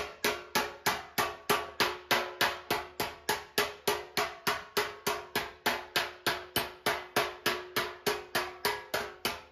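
Steel panel-beating slapper striking the dented steel front wing of a classic Mini at a steady pace, about four even slaps a second, each with a short metallic ring. These are glancing strikes, with a dolly pressed behind, that stretch the metal and draw the dent out.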